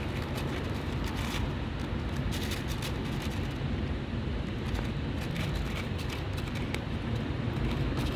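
Steady low outdoor rumble with scattered faint short clicks.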